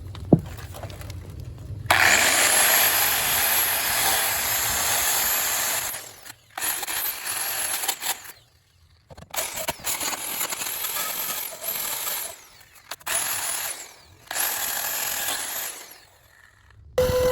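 A sharp click, then a handheld power tool run in bursts against rusty metal: one long run of about four seconds, then several shorter runs with pauses between, the motor's high whine climbing as each run starts. It is clearing out rust and weak metal from a rotted rocker panel.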